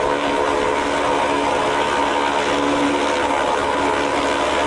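ATR 72 twin-turboprop airliner's engines and propellers running on approach: a steady hum with several held tones over a rushing hiss.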